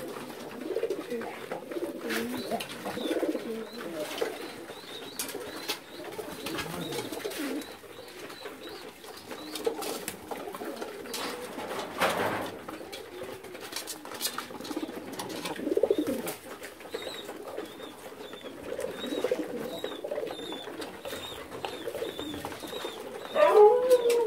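Domestic fancy pigeons cooing continuously, several birds overlapping, with scattered sharp clicks and a louder call near the end.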